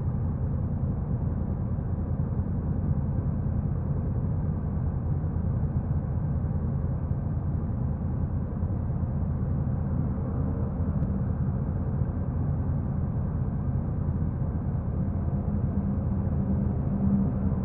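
Honda NC750X motorcycle's 745 cc parallel-twin engine running steadily, a deep, even exhaust note.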